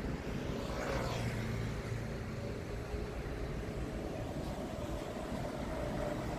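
Road traffic noise at a busy junction: a steady rumble of vehicles, with one passing close about a second in. A faint steady whine joins from about four seconds in.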